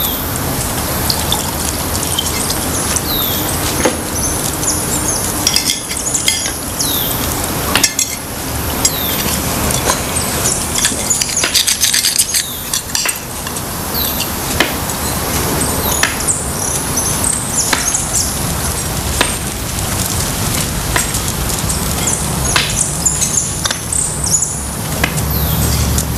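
Cutlery and dishes clinking at a family meal, many short clicks scattered over a steady crackly background hiss.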